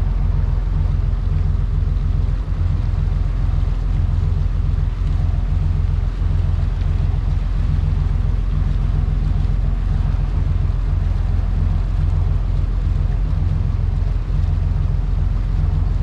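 Charter fishing boat's large engine running steadily at low speed under way, a constant low drone.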